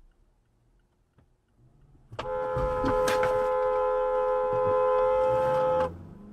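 Car horn held in one steady blast of about four seconds with two close notes sounding together, starting about two seconds in and cutting off sharply.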